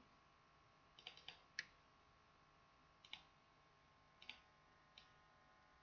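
Faint, scattered computer mouse clicks over near silence: a quick run of three or four about a second in, then pairs and single clicks every second or so.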